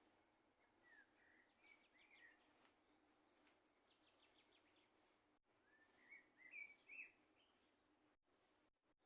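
Songbirds singing faintly: short warbled phrases and a quick trill, with fainter high notes repeating about once a second.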